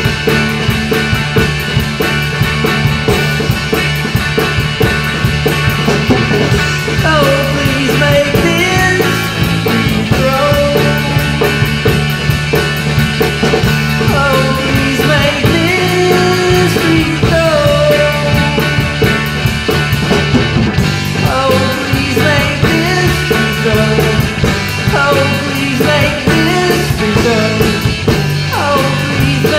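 Rock song played by a full band: drum kit, bass and electric guitars, with a lead melody sliding in pitch over them from about six seconds in.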